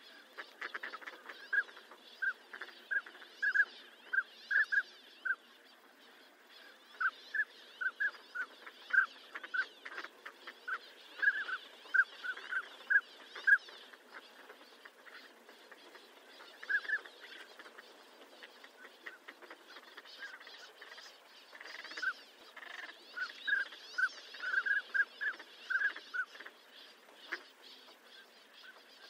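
Northern pintail calls: runs of short, clipped notes repeated a few times a second, with pauses between runs, over a faint steady hiss.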